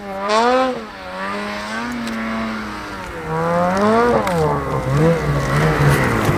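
Snowmobile engine revving up and down, its pitch repeatedly rising and falling every second or so, louder from about three seconds in.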